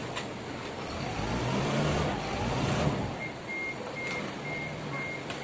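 Toyota forklift engine revving up and easing off for about two seconds, then the forklift's reversing alarm starts beeping steadily, about two beeps a second, with a few sharp metal clanks.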